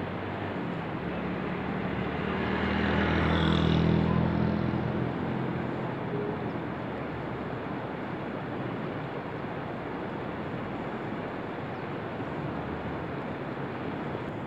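A motor vehicle passes close by, its engine sound swelling to a peak about four seconds in and then fading. Under it runs a steady rushing noise of river water.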